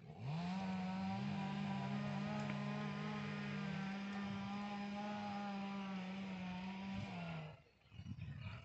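An engine starts up, its pitch rising quickly to a steady note, and runs at an even speed, with a second, lower engine note joining about a second in; both cut off together a little before the end.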